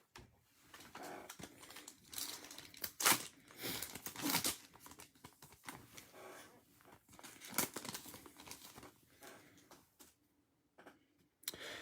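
Foil trading-card pack wrapper being torn open and crinkled by hand, in irregular crackling bursts with a few sharper rips.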